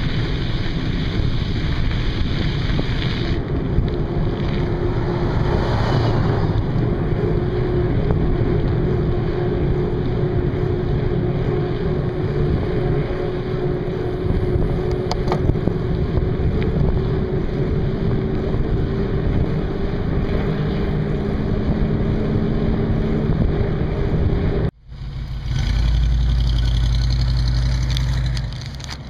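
Wind rushing over the microphone with road noise while riding along a highway, a steady hum running through it. After a sudden break near the end, a low steady rumble of an idling engine.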